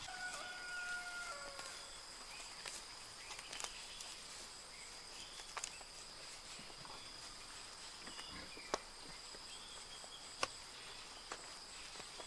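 Faint garden ambience: a steady high-pitched insect drone, with a brief whistle-like tone at the start and a few sharp clicks later on, two of them louder.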